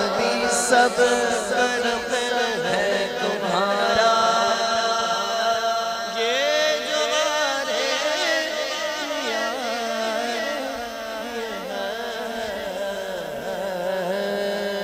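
Male naat reciter singing unaccompanied, a long drawn-out phrase with the pitch gliding and wavering, over a steady held background tone.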